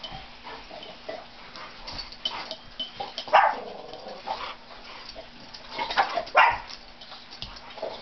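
Two dogs, a Chinese shar pei and an American bulldog/boxer mix, barking and growling as they play-fight, with the loudest outbursts about three and a half seconds in and again around six seconds.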